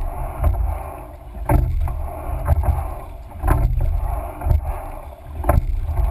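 Coxed four rowing shell under way: oars knocking in their oarlocks about once a second with each stroke, over a steady rush of water and low rumble.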